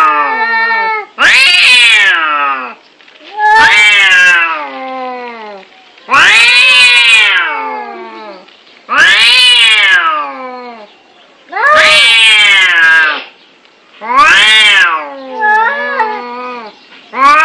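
Domestic cats yowling during a fight: six long, loud yowls, each rising then falling in pitch, coming about every two and a half to three seconds, followed by shorter broken calls near the end.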